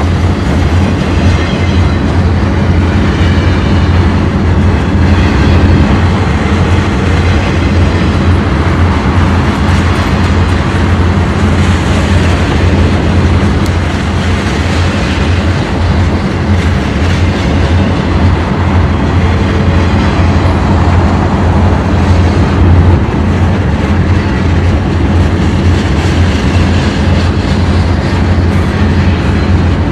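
Diesel locomotive sound running steadily under power: an even, continuous low drone with rail noise, with no change in engine pitch.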